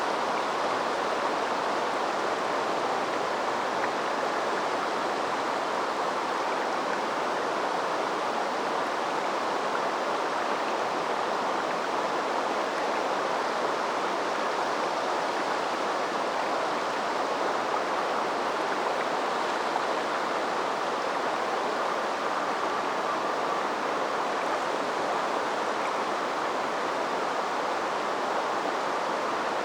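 Small river flowing, a steady rushing of running water that stays even throughout.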